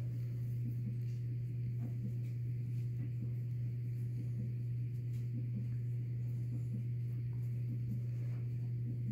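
A steady low hum that holds one pitch without change, with a few faint ticks.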